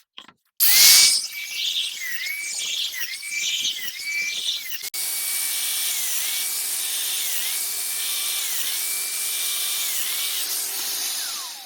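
Festool Domino joiner running while its 8 mm cutter is plunged to cut mortises. Its motor whine dips briefly and recovers about once a second with each plunge, then spins down near the end.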